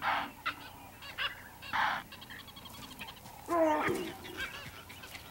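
Impala alarm snorts: short, harsh blasts of breath, two of them about two seconds apart, the impala signalling that they have spotted a stalking leopard. Birds chirp faintly throughout, and a louder pitched call comes about three and a half seconds in.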